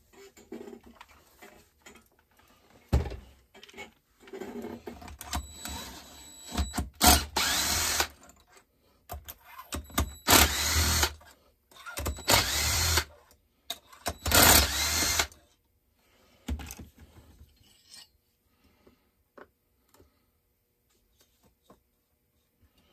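Cordless drill/driver spinning screws out of a chainsaw being torn down, in four bursts of about a second each through the middle, with knocks and clinks of tools and parts between them.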